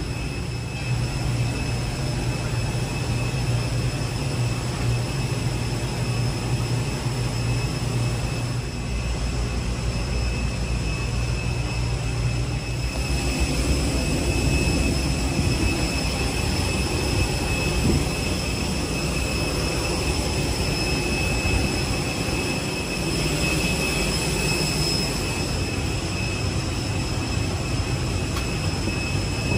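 Steady airliner ground noise at the gate: a continuous drone with a high, even whine on top. A deep hum under it drops away about halfway through.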